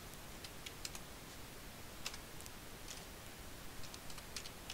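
Computer keyboard keystrokes, a few sharp clicks at a time with short gaps between, as figures are typed into a spreadsheet cell. The clicks are faint, over a low steady hiss.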